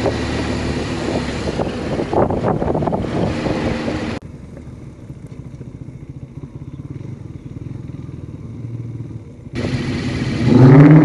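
Motorcycle engine running on the road under heavy wind noise on the microphone. About four seconds in, the sound drops abruptly to a quieter, steady engine sound. The loud wind and engine return about a second and a half before the end.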